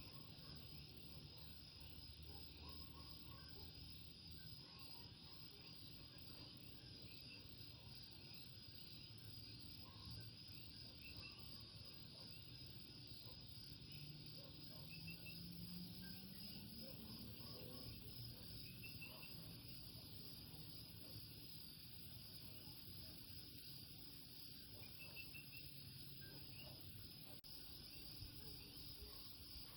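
Faint night chorus of Puerto Rican coquí frogs, scattered short chirps over a steady, high insect trill. A low hum rises gradually in the middle.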